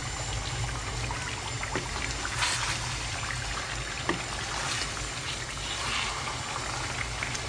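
Thick coconut-milk rendang gravy with chicken drumsticks simmering in a pan over low heat, bubbling steadily. A wooden spatula stirs it and knocks sharply against the pan twice.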